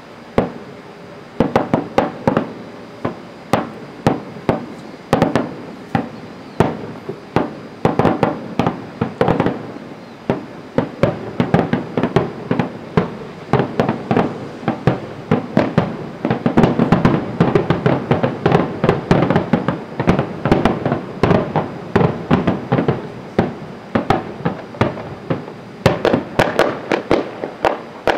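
Aerial fireworks bursting overhead: a rapid, irregular run of bangs and pops, each with a short echoing tail, thickening to a near-continuous barrage through the middle and stopping just before the end.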